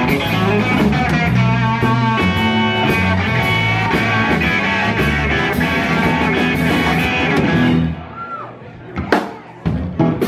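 Live blues band with harmonica, electric guitar, bass and drums playing loudly, then stopping abruptly about eight seconds in as the song ends. A few scattered claps and crowd sounds follow.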